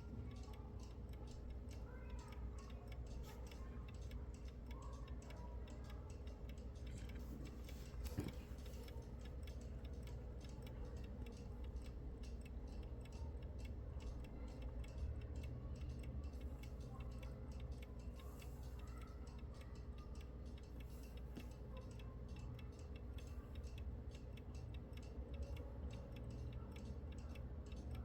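1890 Junghans B32 mechanical alarm clock ticking steadily, with one louder click about eight seconds in, over a faint steady hum.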